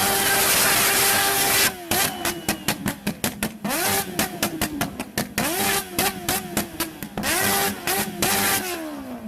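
Motorcycle engine revved hard up to the rev limiter and held there, the ignition cutting in rapid stutters, then blipped up to the limiter again and again before the revs drop away near the end.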